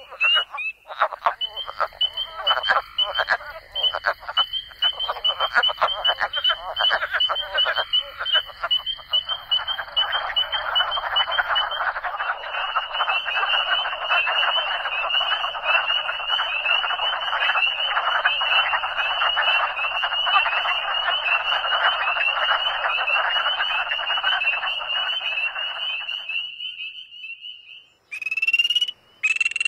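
A chorus of many frogs calling at once, with a steady high trill above the lower calls. It is patchy at first, thickens into a continuous chorus after about ten seconds, and stops a few seconds before the end, where two brief separate sounds follow.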